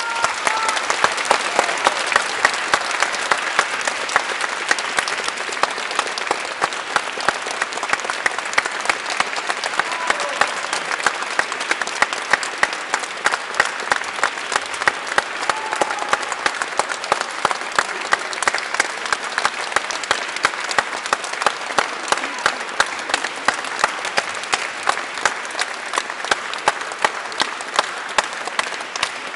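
Concert audience applauding after the final chord of an orchestral and choral work: dense, steady clapping, with a few short voices calling out over it.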